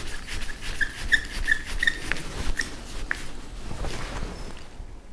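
A long screwdriver turning a small steel screw in the T-slot of a surface grinder's table: a run of short, high squeaks about three a second for the first two seconds, then a few separate clicks.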